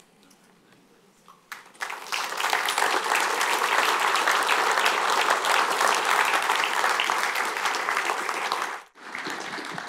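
Audience applauding. It starts about two seconds in and drops off sharply about a second before the end.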